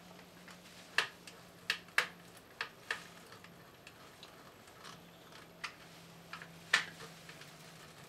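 A handful of small, sharp, irregular clicks and ticks from the screw-terminal block of a burglar-alarm control panel as a wire is pushed into the tamper terminal and its screw is worked.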